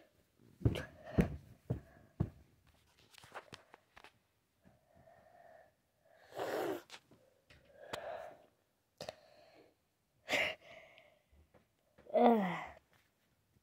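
Knocks and rustling from handling the phone in the first two seconds, then scattered breathy exhalations. Near the end comes a short vocal sound falling in pitch.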